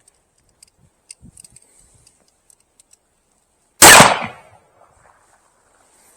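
A single shot from a Colt Walker cap-and-ball revolver firing a black-powder load, a loud blast about four seconds in with a tail that fades over about half a second. A few faint clicks come before it.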